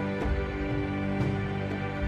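Background music: sustained tones over a steady beat of soft percussive strokes about two a second.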